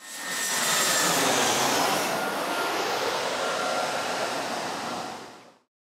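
Intro sound effect: a loud, steady rushing roar with faint high whining tones. It swells in at once and fades out about five and a half seconds in.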